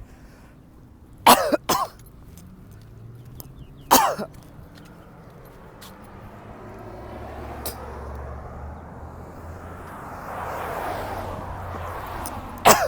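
A woman coughing up phlegm: a quick double cough about a second in, another cough a few seconds later, and one more near the end.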